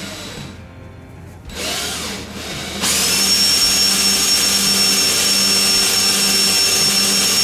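Cordless drill spinning a pool cue shaft in a portable drill-powered cue lathe while a scouring pad is held against the turning shaft. It picks up about a second and a half in, then from about three seconds in runs loud and steady with a constant high whine.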